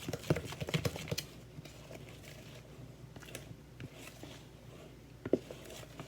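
Light clicks and knocks of kitchen utensils being handled while making batter: a quick run of them in the first second, then a quiet stretch with scattered ticks and one sharper knock about five seconds in.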